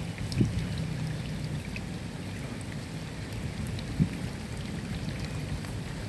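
Steady rain falling, with individual drops ticking over a low rumble. Two louder, dull thuds stand out, about half a second in and about four seconds in.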